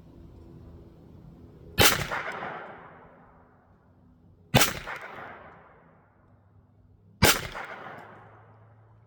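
Three shots from a Jimenez Arms JA22 .22 LR semi-automatic pistol, spaced about three seconds apart, each sharp crack trailing off in an echo for a second or so.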